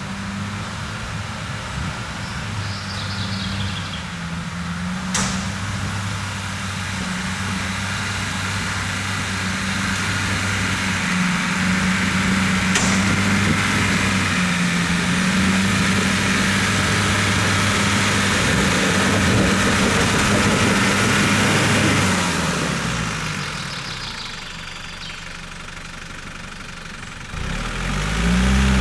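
Engine of a lifted off-road 4x4 pickup working at low, fairly steady revs as it crawls up a muddy forest track, growing louder toward the middle. Near the end the revs drop, then rise sharply.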